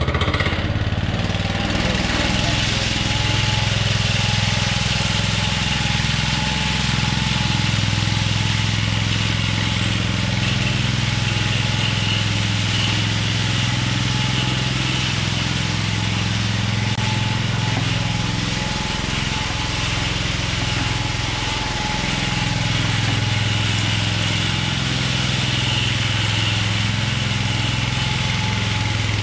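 Walk-behind power trowel's small gas engine running steadily while its float pan makes the first pass over a freshly poured concrete slab. The engine note wavers slightly up and down.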